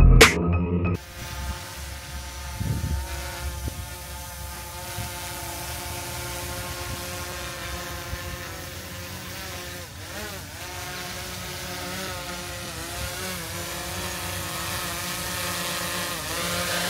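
DJI Air 3 quadcopter's propellers whining steadily in flight, the pitch wavering at times and rising near the end.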